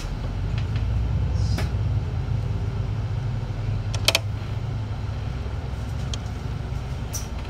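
A city bus's engine and running noise heard from inside the bus: a steady low rumble, with a short rattling click about four seconds in.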